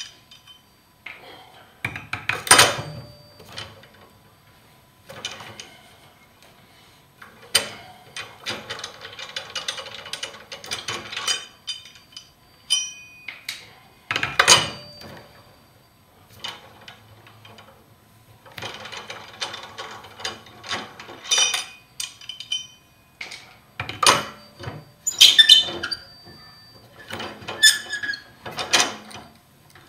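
Four-way cross lug wrench spinning loosened lug nuts off a car's wheel studs: bursts of metallic rattling and clicking, broken by a few sharp clanks of the steel wrench.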